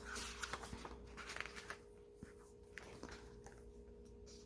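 Rustling and light handling of a K-pop album's paper packaging being opened, busiest through the first two seconds, then a few faint clicks, over a faint steady electrical hum.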